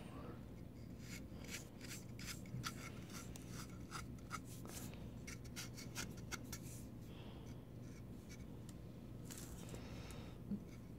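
Faint scratching, rubbing and small clicks of fingers handling a 3D-printed plastic model and rubbing at its toe, freshly patched with hardened crazy glue and baking soda. The clicks come thickest in the first half, over a low steady hum.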